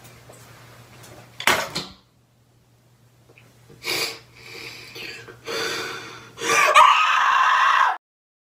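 A person's voice in a small room: short breathy sounds about a second and a half in and again about four seconds in, then a loud, wavering vocal wail lasting just over a second near the end. A low steady hum runs underneath until the wail.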